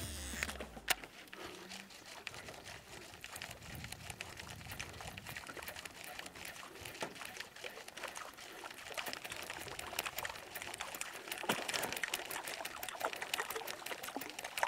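Water trickling and lapping against a small boat, a quiet stream of many small, irregular drips and splashes.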